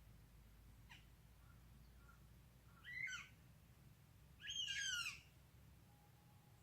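A bird calling twice: a short harsh call about three seconds in, then a longer one about a second and a half later, over a faint low background hum.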